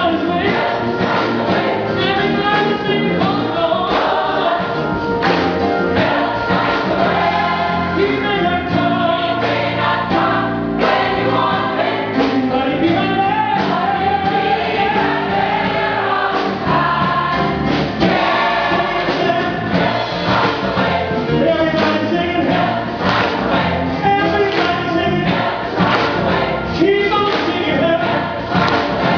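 A mixed gospel choir of women and men singing an upbeat song live, with band accompaniment keeping a steady beat.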